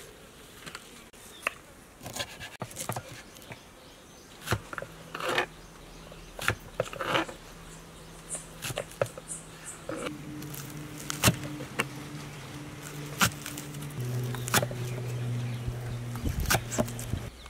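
Kitchen knife chopping spring onions on a wooden cutting board: irregular sharp taps of the blade striking the board. A steady low hum runs underneath from a few seconds in and shifts pitch a couple of times.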